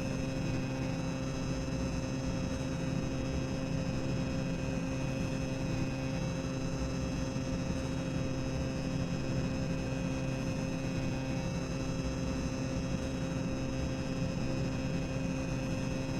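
Tower of Terror boiler room ambience: a steady mechanical drone of boilers and machinery, with a constant low hum and a few held tones over an even rumbling noise.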